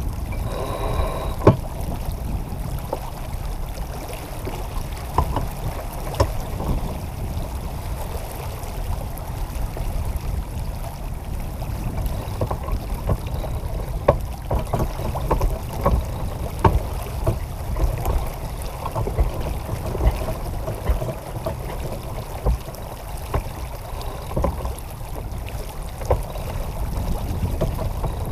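Water rushing along the hull of a J-35 sailboat under sail, with wind noise on the microphone. Scattered sharp knocks come from the deck.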